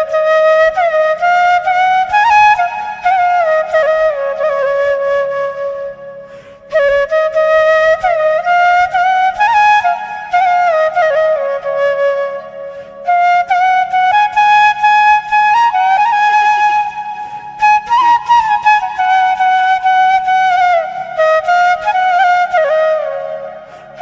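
Relaxing background music: a single sustained melody line that slides between notes, played in long phrases with short breaks between them, over a faint steady low drone.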